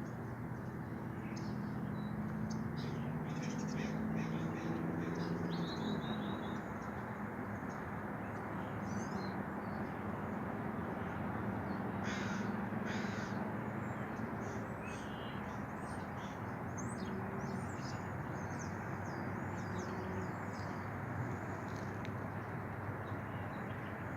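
Birds calling repeatedly, short scattered calls including a few harsher cawing calls, over a steady rush of outdoor background noise. A low hum runs under it for the first six seconds or so and returns briefly past the middle.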